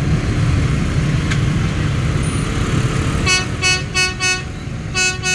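Engines running with a low rumble, then a motorbike horn honks in quick short beeps: four about three seconds in, and a few more near the end.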